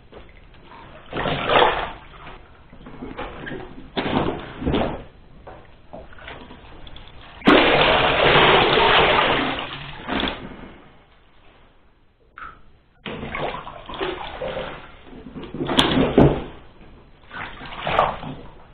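Water sloshing and splashing in a bathtub as a ventilation unit's heat exchanger is scrubbed by hand with a cloth. Near the middle, a steady rush of water lasting about three seconds as the exchanger is lifted and tipped and water runs out of it, then further irregular splashes.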